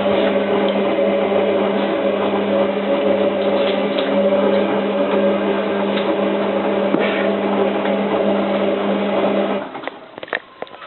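Hotpoint 9534A washing machine's drum motor running steadily with a humming whine as it tumbles the wash load during the heating stage of a boil wash, then stopping about ten seconds in; a few light clicks follow.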